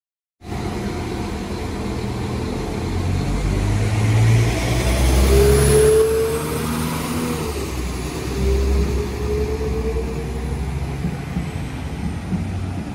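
Diesel multiple unit train, likely a Class 195, pulling away with its engine note rising twice, as if through gear changes, over a loud low rumble.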